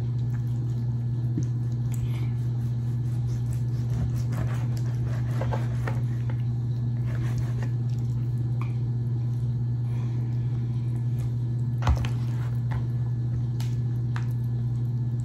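Knife slicing raw chicken breasts on a cutting board: soft, scattered cutting and tapping sounds, with one sharper knock about twelve seconds in, over a steady low hum.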